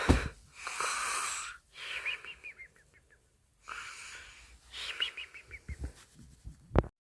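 A person snoring theatrically: two slow breath cycles, each a hissy in-breath followed by a wheezy, whistling out-breath. A sharp click near the end.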